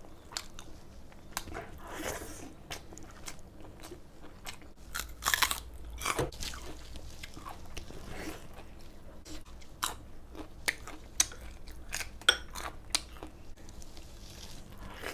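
A person eating crunchy food close to the microphone: irregular crisp bites and crunching chews, loudest about five to six seconds in.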